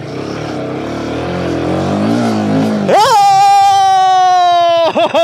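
Royal Enfield Himalayan 450's single-cylinder engine running under the rider on a climb over slippery clay. About three seconds in, the revs shoot up sharply and hold high, sagging slowly. Near the end the sound starts to cut in and out rapidly.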